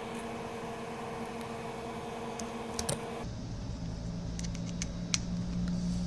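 Scattered light clicks and taps of small parts being handled on a repair bench, over a steady electrical hum. The background hum changes abruptly about three seconds in.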